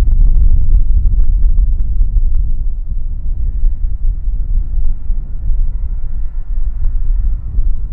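Airbus A300-600ST Beluga's turbofan engines on approach: a low, continuous rumble with a faint steady whine above it, a little louder in the first three seconds.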